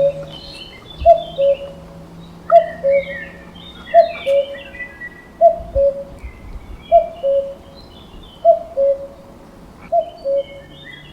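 Common cuckoo calling its two-note 'cu-ckoo', the second note lower, repeated about every second and a half, seven times. Other small birds chirp in the background.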